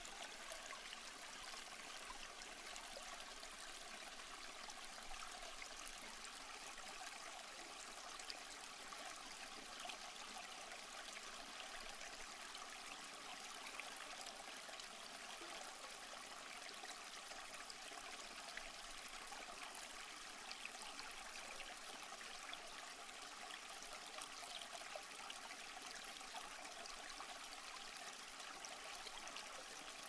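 Running water rushing steadily and without a break, like a stream or cascade.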